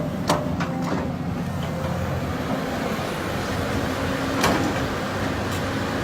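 Caterpillar 320D L excavator's diesel engine running steadily, with a few sharp metallic clanks in the first second and another about four and a half seconds in.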